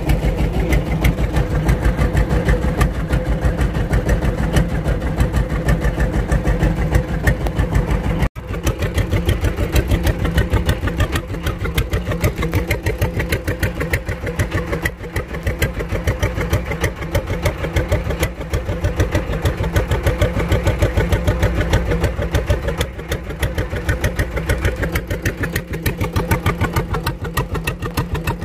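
Boat engine running steadily with a fast, even chugging beat, cut off for an instant about eight seconds in before carrying on unchanged.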